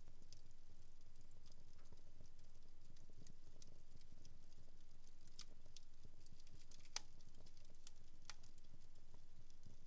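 Wood fire in a fireplace crackling faintly, with scattered small snaps and pops over a low rumble and one sharper pop about seven seconds in.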